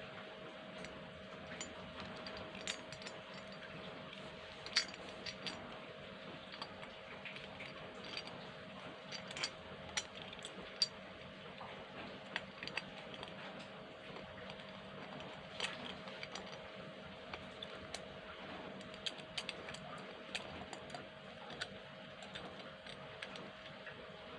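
Light clicks and taps of small hard parts being handled, scattered and irregular, over a faint steady hum.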